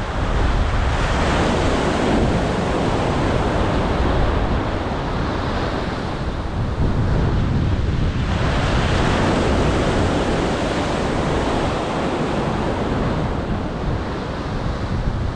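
Ocean surf washing in against the shore, swelling twice, with wind buffeting the microphone and a heavy low rumble.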